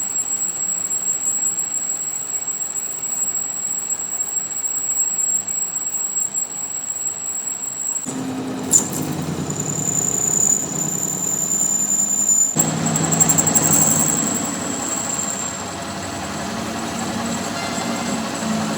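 Metalworking machinery running steadily with a constant high whine. The sound changes abruptly twice, and there is a single sharp knock shortly after the first change.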